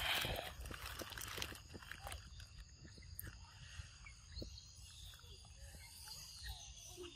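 Rustling and footsteps on dry leaves for about the first second and a half, then quiet outdoor ambience: a steady high insect drone with scattered small clicks and a few faint short calls.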